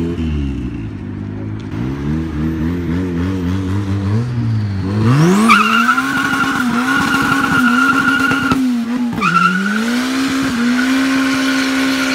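Turbocharged Honda Civic's engine revving up and down in waves, then launching about five seconds in. The engine is held at high revs while the tires squeal in a long burnout, breaking off briefly near nine seconds before the squeal picks up again.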